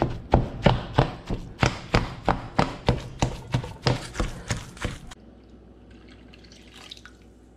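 Masher pounding cooked sweet potatoes and shredded chicken in a stainless steel bowl: wet, squelching strikes with a sharp clank off the bowl, about three a second. The mashing stops abruptly about five seconds in. After that comes a much quieter stretch with faint pouring of broth into the bowl.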